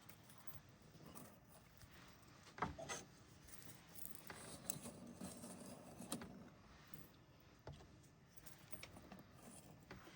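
Near silence with faint rubbing and a few light clicks and knocks, the sharpest about two and a half seconds in and again about six seconds in.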